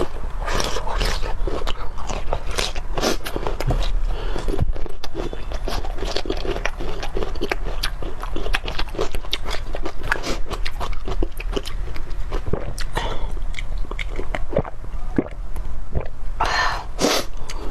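Close-miked eating sounds from a person eating bone marrow and garlic: continual biting and chewing with many short wet smacks and crunches. Near the end there is a longer, louder burst.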